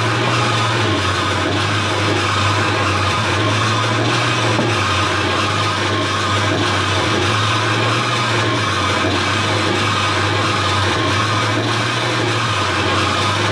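Steady wall of electronic noise with a strong low hum underneath, from a home-built noise rig of effects pedals and amplified springs. It holds level with no breaks or hits.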